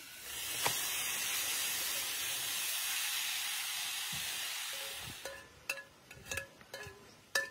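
A steady hiss for about five seconds, then a run of sharp clinks from kitchen utensils.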